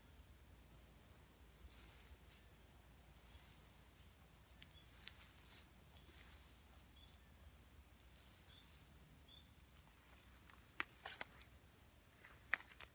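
Quiet woods with faint, short, high bird chirps repeating now and then. Near the end come a few sharp snaps of footsteps on the forest floor breaking twigs.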